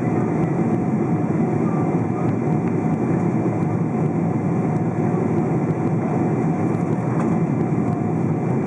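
Steady cabin noise of a Boeing 777-200 in flight: the even rush of the jet engines and airflow heard from inside the cabin by a window seat, with a faint steady hum running through it.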